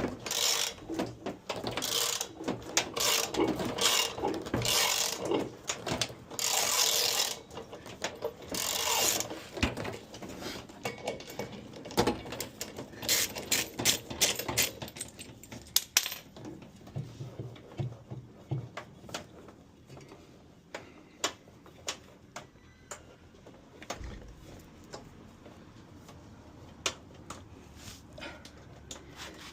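Hand tools and metal and plastic parts clattering and clicking as a washing machine is taken apart: dense handling noise for about the first ten seconds, then scattered single clicks and knocks.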